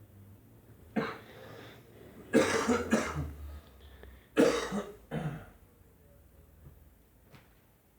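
A person coughing, about five coughs in three bouts: one about a second in, then two quick pairs.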